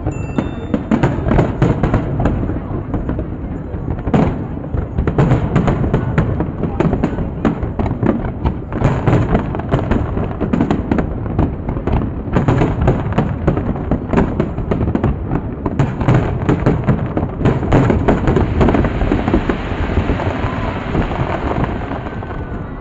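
Large aerial fireworks display: a rapid, continuous barrage of bangs and crackles from many shells bursting in quick succession, easing slightly near the end.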